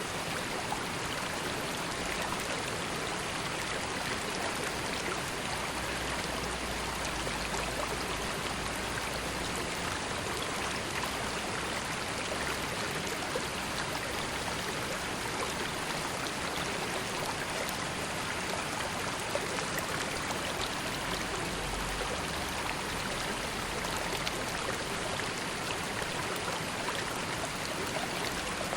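River water flowing steadily over stones, an even rushing babble with no pauses.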